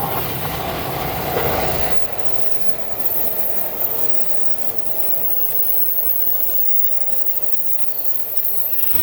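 JR Chuo Line E233 series electric train passing at speed, loudest in the first two seconds, then its wheels rolling on with repeated clicks over the rail joints.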